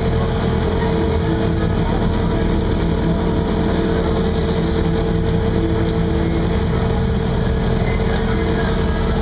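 Boat engine running steadily at idle, a constant even hum that holds the same pitch.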